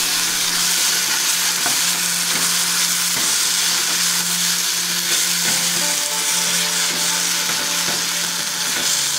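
Thick tomato-onion masala sizzling steadily in a hot nonstick pan while a wooden spatula stirs it, with small scraping ticks against the pan.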